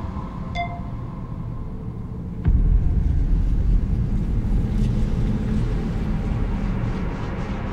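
Low rumbling sound-design drone. About half a second in, a short pitched notification ping sounds; about two and a half seconds in, the rumble jumps up in a sudden deep low hit and carries on louder.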